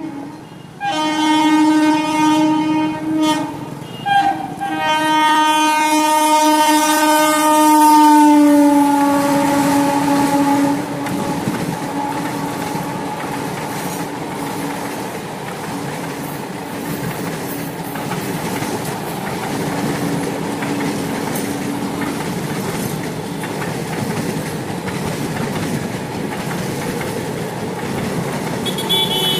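Indian Railways WAG-7 electric locomotive sounding its horn in two long blasts as it approaches at high speed, the second blast dropping in pitch as the locomotive passes. Then the steady rush and clickety-clack of the express's coaches running by over the rails, with a brief high squeal near the end.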